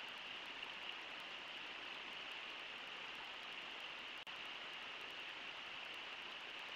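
Steady rush of shallow river rapids, an even hiss with no other distinct sounds, briefly cutting out for an instant a little past the middle.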